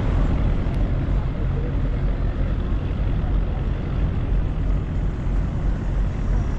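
Steady low drone of a riverboat's engine running while the boat is underway.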